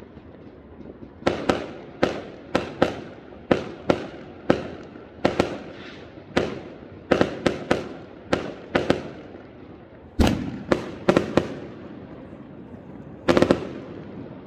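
Fireworks going off. About twenty sharp bangs come at irregular intervals, often in quick pairs or clusters, and each one dies away in a short echo. The loudest bang comes about ten seconds in.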